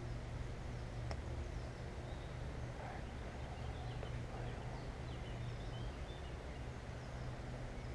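Faint, scattered chirps of small birds over a steady low hum.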